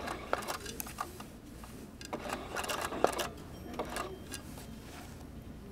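Domestic sewing machine worked for embroidery, with the wooden hoop handled and turned on the machine bed. Irregular clicks and taps come in two clusters, one in the first second and a denser one from about two to four seconds in, over a low steady hum.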